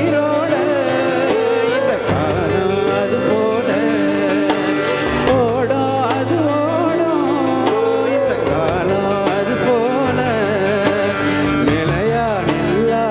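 Live band playing a Tamil film song unplugged: a male voice sings the melody over keyboard accompaniment and a steady low bass line.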